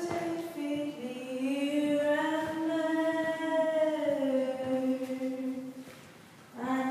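A woman singing unaccompanied, holding one long note that bends slightly up and back down and fades away near the end, before the singing picks up again.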